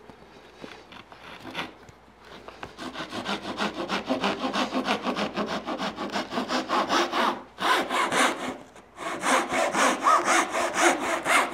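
Japanese-style hand saw cutting a tenon into a wooden lattice bar, in quick repeated strokes. The strokes start light and faint, build into a steady run, stop for about a second a little past the middle, then carry on.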